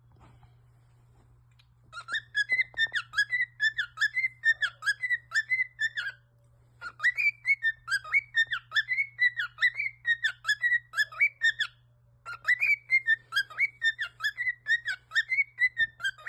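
Rapid high whistled beeps, about four a second, in three bouts of about four seconds with short pauses between them, imitating an alarm clock going off.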